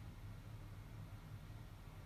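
Faint steady low hum with light hiss, the noise floor of a VHS tape playing back a silent stretch.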